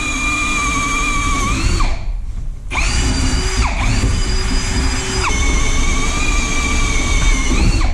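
Electric drill running: a steady whine that winds down and stops about two seconds in, then spins back up. Its pitch drops a little about five seconds in, and it winds down again at the end.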